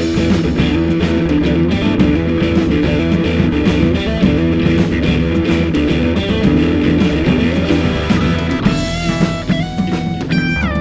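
Rock band playing an instrumental passage on electric guitars, bass guitar and drum kit, with steady drum hits. Near the end a guitar stands out, playing held notes that step between pitches and slide.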